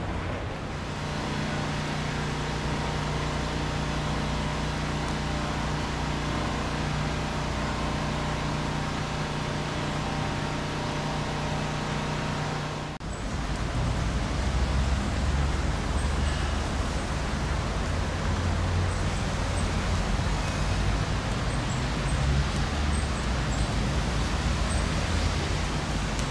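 Outdoor city background noise with traffic. For the first half a steady mechanical hum of several tones runs over it. Then the sound changes suddenly to a low, gusty rumble of wind on the microphone, with a few faint high chirps.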